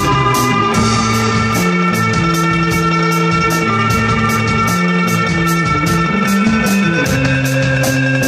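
Live instrumental rock from electric guitar, electric bass and drum kit: held bass and guitar notes that change every second or so over a steady cymbal beat.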